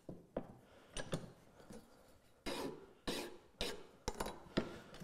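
Flat single-cut file rasping across the cut end of a steel bar held in a vise: several short strokes about a second apart, with a longer one about halfway through, chamfering the corners and taking off the sharp burrs.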